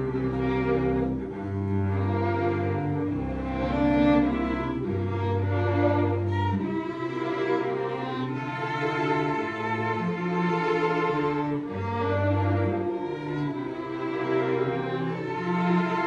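A small string ensemble of violins, cello and double bass playing live, with long held notes. Low bass notes sound through the first half and return briefly later.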